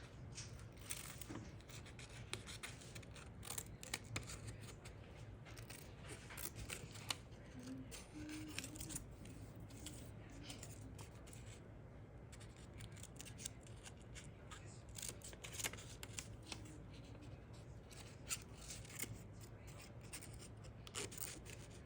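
Light, irregular scratching and clicking of handwork on paper.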